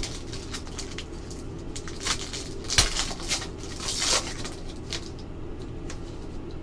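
Foil trading-card pack wrapper being torn open and crinkled by hand, a scatter of short crackles that is busiest in the middle, over a low steady room hum.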